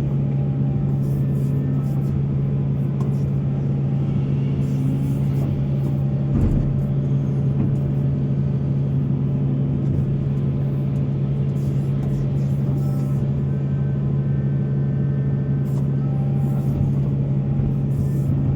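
Heavy diesel earthmoving machine running steadily, a loud low engine drone that holds one pitch throughout, with a single knock about six seconds in.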